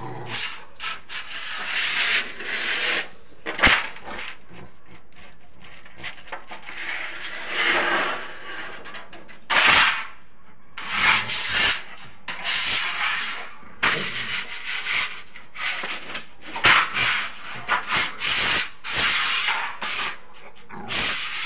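A Rottweiler scratching and scraping at a tiled floor with its paws, in irregular rasping bursts of about half a second to a second each.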